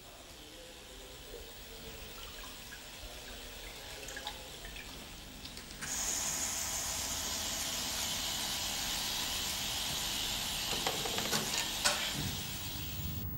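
Running water, like a tap into a sink, coming in suddenly about six seconds in and running steadily, with a few clicks just before it eases off near the end. Before it, only a faint steady hiss.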